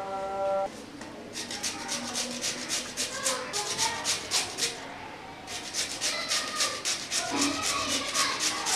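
A peeled potato being grated on a stainless steel hand grater: quick scraping strokes, about four a second, with a short pause about halfway through. A brief musical tone sounds at the very start.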